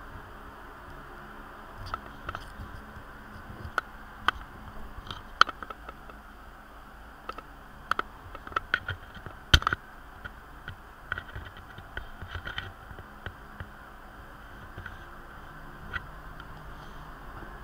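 Scattered light clicks and taps at irregular intervals, with two sharper ones about five and nine and a half seconds in, over a steady hiss.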